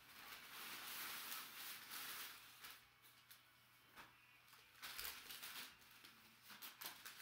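Faint rustling and crinkling of packaging being opened and handled, with a few light clicks and crackles later on.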